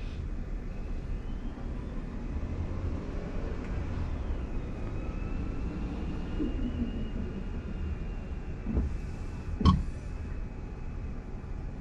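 Steady road and tyre rumble inside a moving car's cabin, with a faint high whine that rises and then holds. A small knock comes near the end, followed shortly by one sharp, loud knock.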